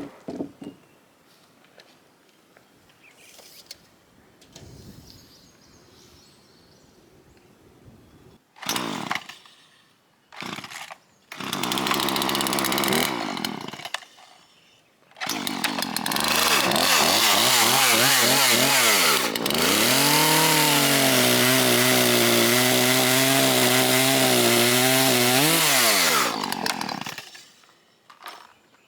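Poulan Pro PR4218 two-stroke chainsaw: a few short bursts, then it runs briefly. About halfway through it opens up to full throttle for roughly eleven seconds, cutting wood, its pitch dipping as the chain takes the load. It shuts off shortly before the end.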